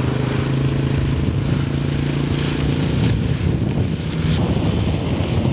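Single-cylinder four-stroke engine of an old Yamaha Jupiter MX motorcycle running steadily on the move, under heavy wind noise on the microphone. The engine's hum fades about three seconds in, leaving mostly wind, and there is a sharp click about four seconds in.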